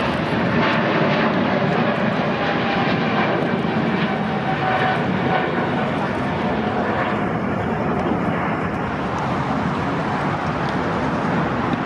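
Jet engines of a departing Boeing 777 airliner: a steady loud rumble with a faint whine through it.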